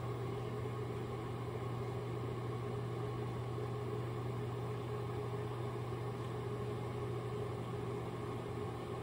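Microwave oven running with a steady electrical hum and fan noise while its turntable turns a cup of instant ramen.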